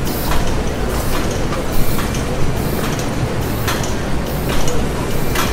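Dense factory machinery noise: a steady low rumble with irregular knocks every second or so, one sharper knock about two seconds in.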